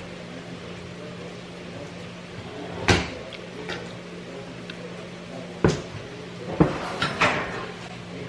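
Kitchen handling noises: a few sharp knocks and clacks, one loud one about three seconds in and a group of several a few seconds later, over a steady low hum.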